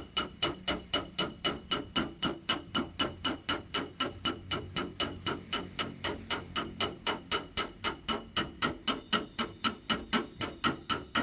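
Hammer tapping steadily on a car's sheet-metal body panel, about four light strikes a second, each with a short metallic ring: dent-straightening work.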